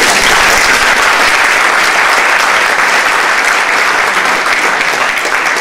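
An audience applauding, dense and steady.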